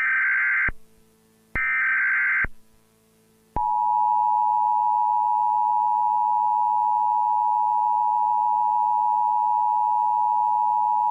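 Emergency Alert System tones: two short bursts of screeching SAME digital header data, then, about three and a half seconds in, the steady two-tone EAS attention signal starts and holds. The attention signal announces an EAS test message.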